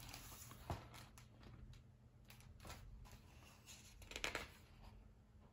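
Faint rustles of a large hardcover picture book's paper pages being turned and handled: a few short rustles, the loudest about four seconds in.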